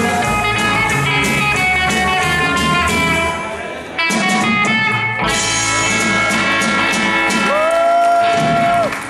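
Live rock and roll band playing electric guitars, bass, drums and keyboard in a steady shuffle rhythm. The sound drops back briefly about three and a half seconds in, then the full band returns and closes on a long held final note near the end.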